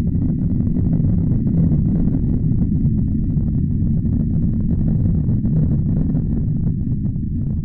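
NASA spacecraft space sound: radio and plasma-wave data from a solar-system body turned into audio, heard as a steady, dense low rumble with scattered crackling and a faint steady high tone.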